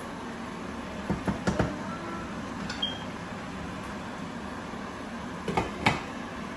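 Steady hiss of a gas hob burner under a pot of boiling spaghetti water, with a few sharp knocks of a utensil against the pot about a second in, and a couple of clanks from the pot lid near the end.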